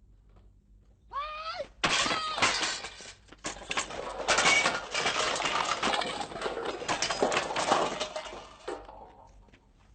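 A short wavering cry, then about seven seconds of dense crashing and smashing, many sharp strokes packed together, fading out near the end.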